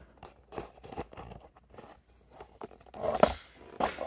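Handling noise from a camera being picked up and moved: scattered clicks, scrapes and rustles, with two louder knocks near the end.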